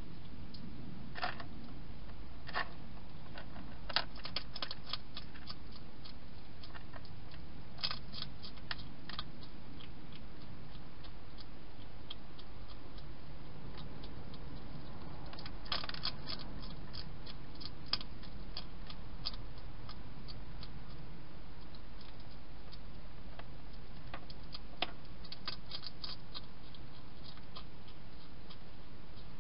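Wild hedgehog crunching dry food, in short bursts of sharp crunches several seconds apart over a steady low hiss.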